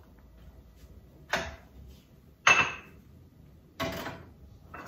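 Glass cups clinking as they are handled and set down: three sharp clinks about a second apart, the second the loudest, each ringing briefly.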